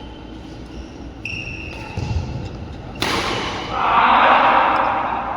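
Sounds of badminton play on an indoor court: a brief shoe squeak about a second in and a low thud, then a sudden loud rushing noise that swells and fades over the last two seconds.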